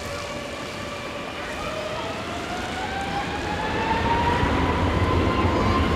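Jet airliner's engines spooling up: a whine rising steadily in pitch over a rushing roar, growing louder, with a low rumble building about four seconds in.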